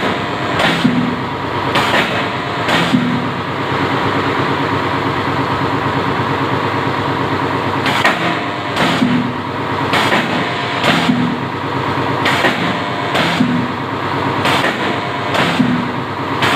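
Spot welding machine for wire mesh cycling, a sharp clack of the electrodes closing with a short electrical buzz for each weld, about once a second. The welds pause for about five seconds in the first half, leaving a steady hum.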